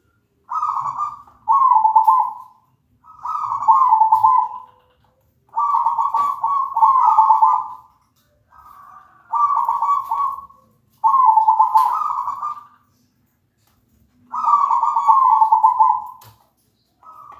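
Zebra dove (perkutut) singing: bout after bout of quick cooing notes, each bout about a second long and dipping slightly in pitch, with short pauses between, about nine bouts in all.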